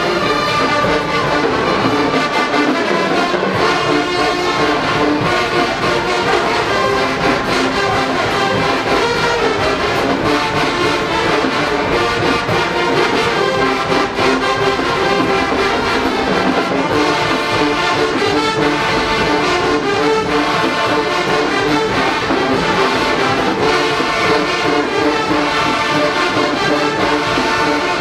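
Marching band playing loudly: a massed brass section of trombones and trumpets holding sustained chords over steady drumline percussion.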